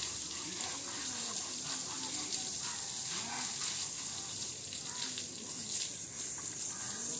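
Water from a garden hose spraying steadily onto an elephant's hide, a constant hiss and splash, with faint voices talking in the background.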